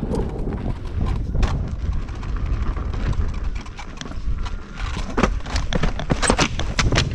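Wind rumbling on the microphone during a ride on a dirt trail, with a run of sharp knocks and crunches from the ground and wheel that come thicker and louder in the last two seconds.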